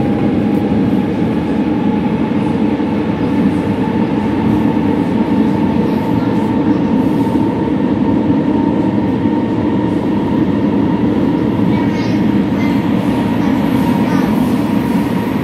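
Metro train running, heard from inside the passenger car: a steady rumble with a thin, steady whine over it.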